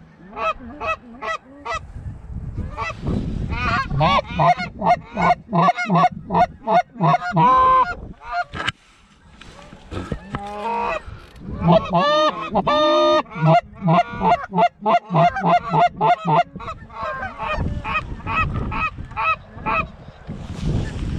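Canada goose calls: quick runs of honks and clucks, with a short pause about eight and a half seconds in and several calls overlapping around twelve to thirteen seconds. Wind rumbles underneath.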